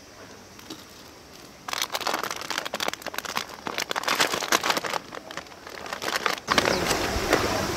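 A crackling, crinkling rustle starts about two seconds in and gives way near the end to a steadier rushing noise.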